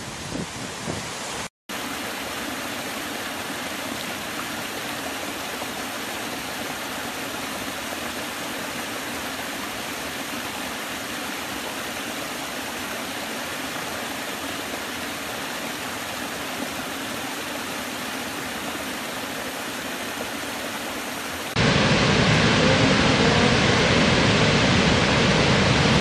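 Steady rushing of water tumbling over a small stepped cascade in a forest stream, broken by a brief dropout about two seconds in. Near the end it cuts to the louder, deeper, fuller rush of a large waterfall.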